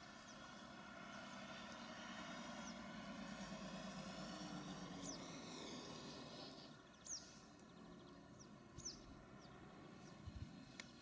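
Faint steady hum of farm machinery engines running, a little louder in the first half. Several short bird chirps come in the second half.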